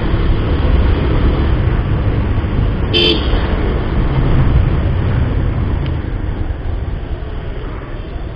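Bajaj Pulsar 150 motorcycle riding along a town street: a steady rumble of engine, wind and road noise, with one short vehicle horn toot about three seconds in.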